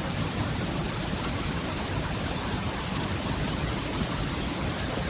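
The Rhine Falls pouring over the rocks and churning the river below: a steady, even rush of water with a deep rumble underneath.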